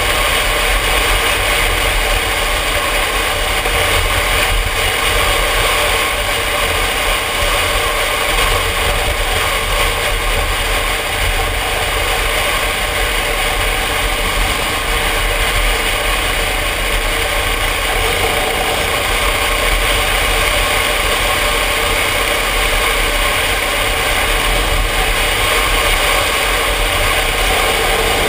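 Yamaha Ténéré motorcycle engine running steadily at cruising speed, mixed with wind rushing over a helmet-mounted camera.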